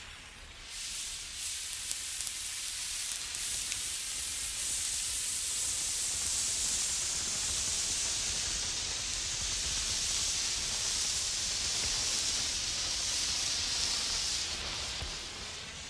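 Lit emergency road flare burning with a steady hiss. It swells up over the first second and thins out near the end.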